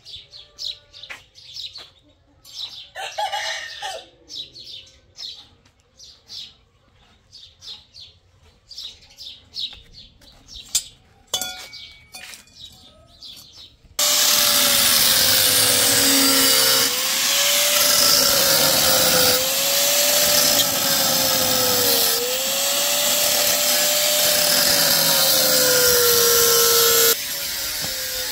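Small birds chirping in many quick, short calls. About halfway through, a power tool's motor cuts in abruptly and runs loud, its pitch sagging three times as it is put under load, then the level drops sharply near the end.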